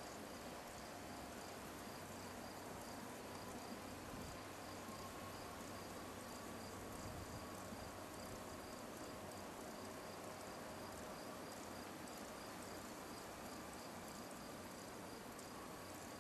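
Insects chirping steadily in a fast, even pulse, faint, over a low outdoor hiss.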